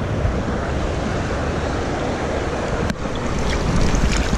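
River water rushing and splashing right at the microphone, a steady rough wash, with a short sharp click about three seconds in.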